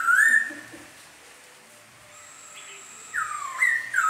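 A caged laughingthrush (khướu mun) singing loud, clear whistled notes that slur up and down. One phrase comes at the start, then a pause, then another phrase of rising-and-falling whistles begins about three seconds in. A thin, steady high whine runs through the second half.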